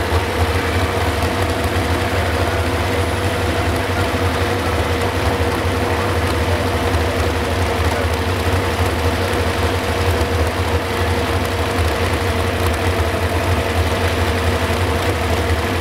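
Modified 4x4 pulling truck's engine idling loudly and steadily through its tall exhaust stacks, the truck standing still at the end of its pull.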